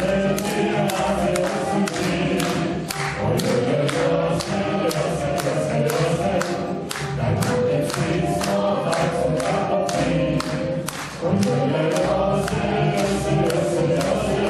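A choir singing, with the audience clapping along in time to a steady beat of roughly two to three claps a second.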